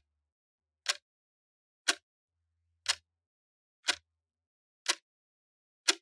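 Clock ticking steadily, one sharp tick a second with silence between them.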